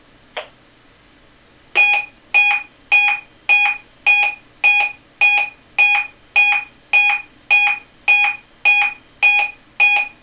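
Reecom weather alert radio sounding its alert beep, a loud electronic beep at a fixed pitch repeating a little under twice a second, set off by a NOAA Weather Radio Required Weekly Test. A short blip comes just before the beeping starts.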